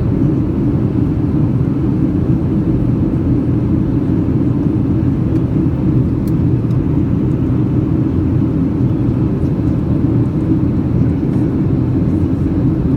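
Cabin noise of a Boeing 737-800 in flight, heard from a seat over the wing: a deep, steady drone of its CFM56-7B turbofans and the air rushing past the fuselage, even throughout.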